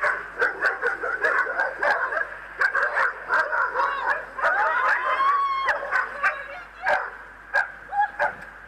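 A pack of stray dogs barking in rapid, overlapping volleys at a person, with one long rising cry about halfway through; the barking thins out near the end.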